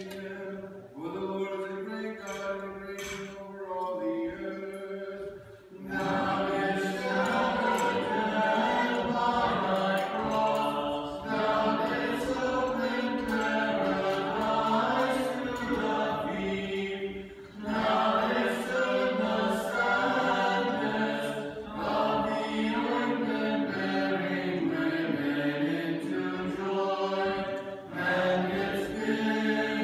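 Choir chanting an Orthodox liturgical hymn a cappella, quieter for about the first six seconds and then fuller and louder, with short pauses between phrases.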